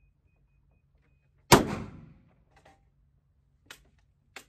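A single pistol shot from a 9 mm Glock 19X about a second and a half in, ringing off the range walls for a moment, followed by a few faint clicks.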